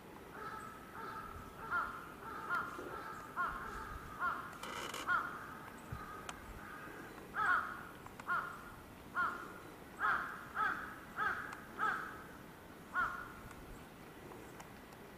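A crow cawing in a long run of a dozen or so harsh calls, about one a second, stopping a couple of seconds before the end.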